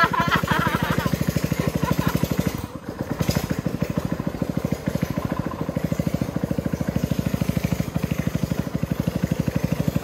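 Small boat motor running at a steady speed, a fast, even putter as it pushes the boat along. Voices are heard briefly at the start.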